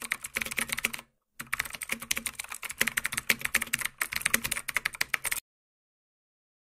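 Computer keyboard typing sound effect: rapid key clicks that pause briefly about a second in, then run on and stop about five seconds in.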